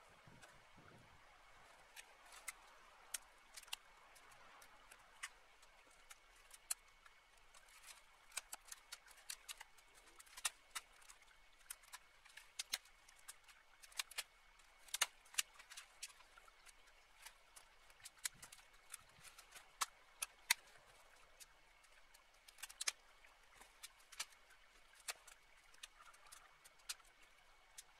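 Dry brush crackling and twigs snapping as branches are dragged from a brush pile, heard as many irregular sharp clicks, with a faint steady high tone underneath.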